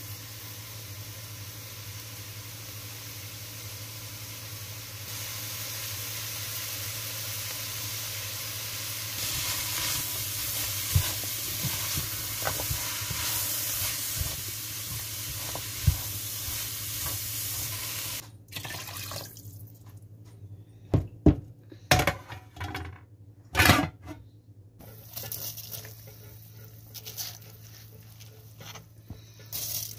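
Spiced vegetables sizzling in a steel pot as they are stirred, the spoon now and then clicking against the pot. The sizzle stops suddenly about eighteen seconds in, and a few loud clatters of utensil on pot follow.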